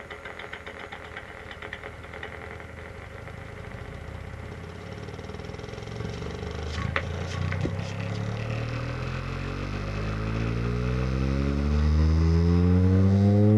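Kicker Competition C6.5c subwoofer playing a low-frequency test-tone sweep. It begins as a fast low flutter, then turns into a buzzy tone that rises steadily in pitch and grows louder, with a couple of sharp clicks about seven seconds in. The owner thinks the refoamed driver is still buckling inside.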